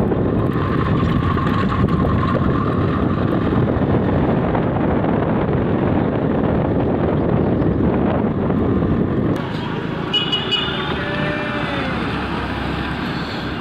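Motorcycle on the move: wind buffeting the microphone over the running engine and road noise for about nine seconds. It then drops abruptly to quieter road traffic, with a few short high-pitched toots about ten seconds in.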